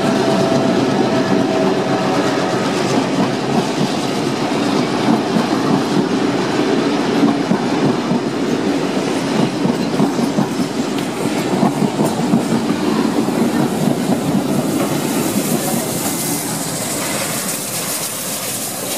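Passenger train of heritage carriages rolling past at close range, the wheels clicking steadily over the rail joints. In the last few seconds a higher hiss comes in as the trailing NSWGR C36-class steam locomotive 3642 goes by.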